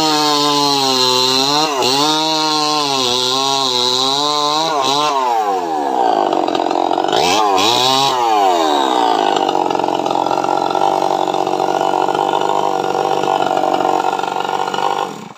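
Two-stroke chainsaw running at high revs while cutting jackfruit wood. Its pitch dips briefly a few times as the chain loads up, falls and climbs again around the middle, then holds steady at full revs. The sound stops abruptly near the end.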